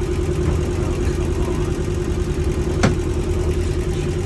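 Boat engine running steadily with a constant hum. A single sharp knock comes a little before three seconds in.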